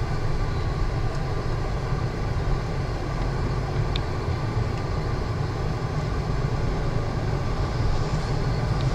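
Steady low rumble of a car's engine and tyres rolling at low speed, heard from inside the car.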